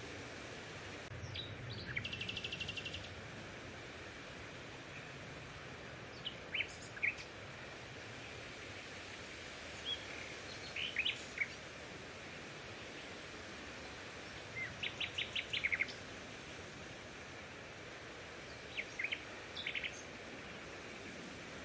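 Birds calling over a steady outdoor hiss: scattered short high chirps, a rapid trill about two seconds in and a quick run of notes around fifteen seconds in.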